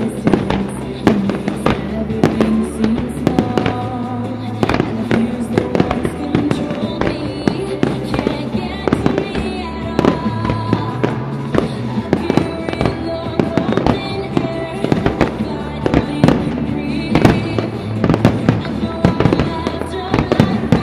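Aerial fireworks bursting in a rapid, continuous run of bangs and crackles, over music.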